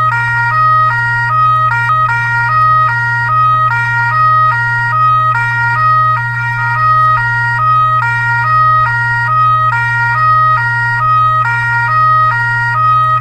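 Fire truck's electronic siren sounding a two-tone hi-lo pattern, stepping back and forth between a high and a low pitch a few times a second, over a steady low hum.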